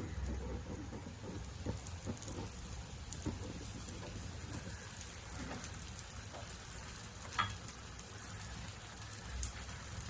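Kerala porotta frying in oil on a hot pan over a high flame: a steady sizzle with scattered crackles and an occasional sharp pop.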